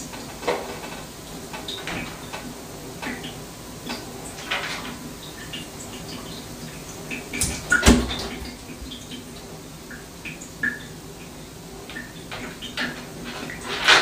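Scattered light knocks and clicks in a small room, with one louder thump about eight seconds in and a few more knocks near the end, over a steady low hum.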